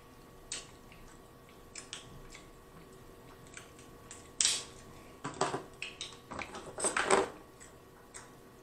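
Close-up eating sounds from king crab legs: shell clicking and cracking as it is pulled apart by hand, and meat being bitten and sucked out. A scatter of small cracks is followed by a louder cluster of them between about four and seven seconds in.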